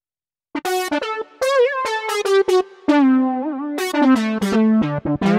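Brassy synthesizer patch played on a MIDI keyboard, starting about half a second in: a melody of short notes, several bent in pitch or given vibrato through a Vibe Bar controller fitted to the front of the keyboard.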